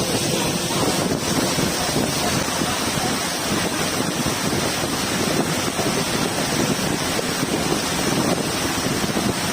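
Steady rushing noise of wind buffeting the microphone, with a sound like rushing water.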